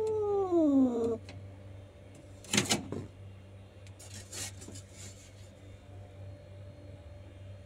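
Agitated tabby-and-white cat giving a drawn-out yowl that slides down in pitch and ends about a second in, the growling moan of an angry cat. A short sharp hiss follows about two and a half seconds in, with a softer one around four seconds, over a faint steady hum.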